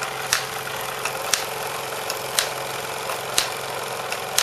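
Wilesco D14 toy overtype steam engine running under load, driving model workshop accessories through lineshafts, pulleys and spring belts: a steady whirring with a sharp click about once a second.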